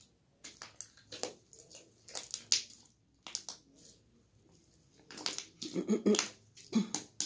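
Jelly slime being squeezed and worked in the hands, making a run of sharp wet clicks and pops at an irregular pace, thickest a little past the middle.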